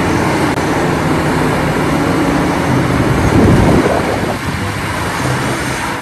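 Large Cat 6015B hydraulic mining excavator working, its diesel engine running under load with a dense mechanical rumble that swells louder briefly about three and a half seconds in.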